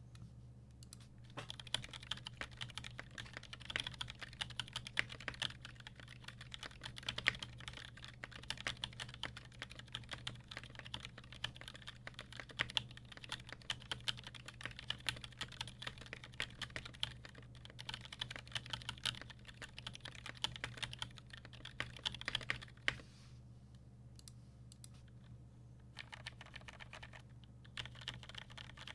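Typing on a Melody96 mechanical keyboard with an aluminium plate, lubed and filmed Gateron Yellow linear switches and GMK keycaps: a fast, steady run of keystrokes that stops about 23 seconds in and picks up again, more lightly, near the end. A faint steady low hum sits underneath.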